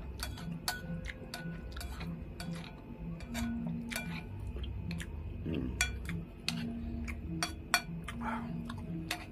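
Metal spoon clinking and scraping against a porcelain bowl in a run of short sharp clinks, with mouth-close chewing; the sharpest clink comes near the end.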